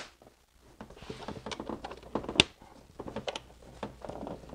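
Spring clips on the plastic air filter box lid of a BMW E90 being snapped back into place: several sharp plastic clicks over light handling noise, the loudest about two and a half seconds in.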